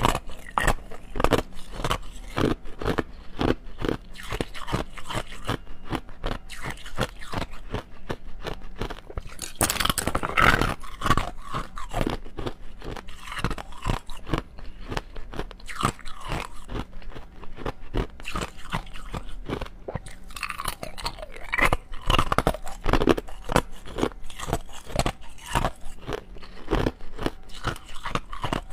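Clear ice cubes bitten and chewed close to a clip-on microphone: a dense, continuous run of sharp cracks and crunches, heaviest about ten seconds in and again a little past twenty seconds.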